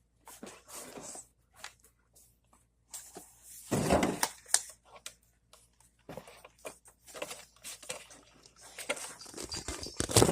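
Irregular rustling and handling noises, with a louder bump about four seconds in.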